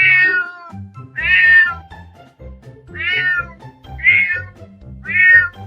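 A domestic cat meowing five times, about a second apart, each meow falling in pitch, over background music.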